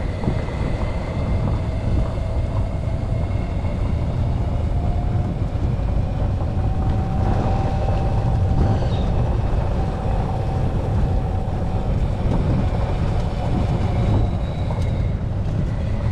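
Steady low rumble of a vehicle in motion, with a faint whine that rises a little in pitch around the middle and eases back down.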